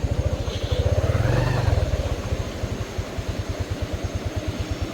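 Small motorcycle engine running at low revs with an even, rapid putter, rising briefly about a second in and then settling back.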